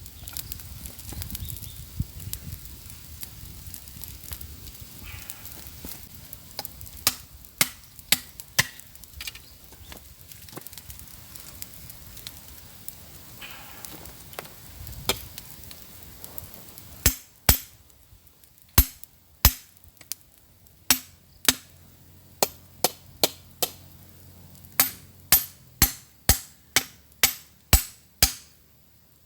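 Chopping: sharp knocks of a blade striking wood. Scattered knocks and rustling at first, then steady hard blows from about two-thirds of the way in, roughly one or two a second.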